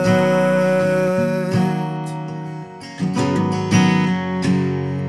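Martin 000-17 acoustic guitar played as a live instrumental passage, with chords struck a few times and left to ring.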